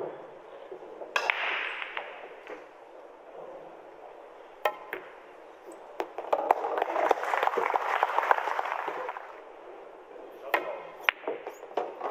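Pool balls clacking: a few sharp, separate clicks of balls striking and dropping on a pool table, with a stretch of softer background noise in the middle.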